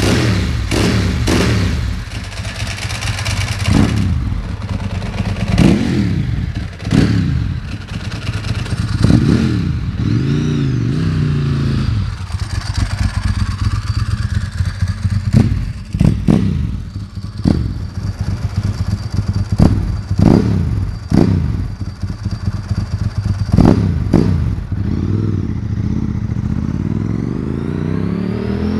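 Ducati 996's 90-degree V-twin engine breathing through a Sil-Motor aftermarket exhaust: a few sharp throttle blips near the start, then repeated revs that climb and drop away, with one more rising run near the end.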